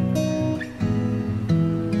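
Background music: acoustic guitar playing chords that change about every half second.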